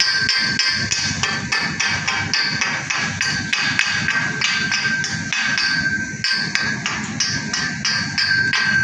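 Chipping hammer striking a freshly welded steel pipe joint in quick even blows, about four a second, with the pipe ringing: slag being knocked off the weld bead.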